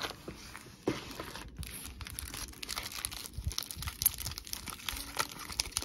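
Foil Pokémon booster pack wrappers crinkling and rustling as packs are pulled from the box and shuffled together in the hands, with a knock about a second in.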